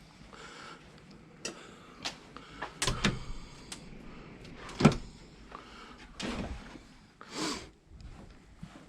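A string of irregular knocks and clatters; the loudest sharp knock comes about five seconds in. Two short rushing noises follow near the end.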